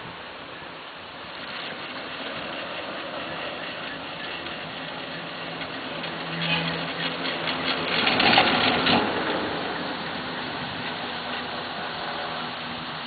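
The haul rope of a 1996 Poma Italia detachable quad chairlift runs through a line tower's sheave rollers under a steady hum and wind noise. A rapid rattling rumble builds, peaks about eight seconds in, then fades as the chair clears the tower.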